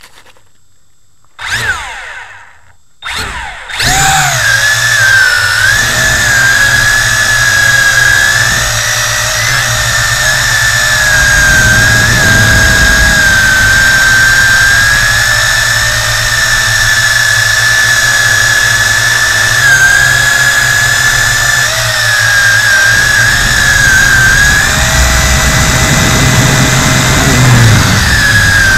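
Tarantula X6 quadcopter's motors and propellers, heard through a camera mounted on the drone: two short spin-ups near the start, then from about four seconds in a steady, loud whine whose high tone wavers slightly as it lifts off and flies.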